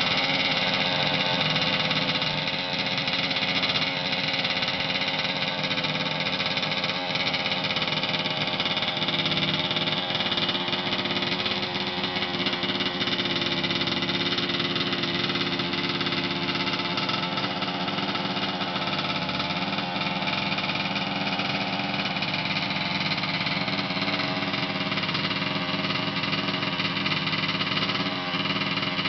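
An engine idling steadily at an even speed, with no revving; the noise from its exhaust pipe is what is being shown.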